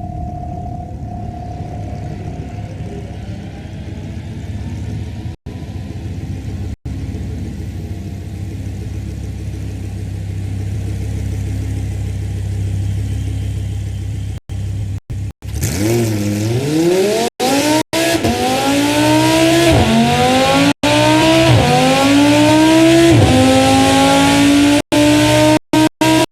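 Audi R8 V10 engine running on a test stand: steady low running for about the first half, then revved hard, its pitch climbing in repeated rising sweeps with short drops between them and growing louder. The sound cuts out for a split second several times.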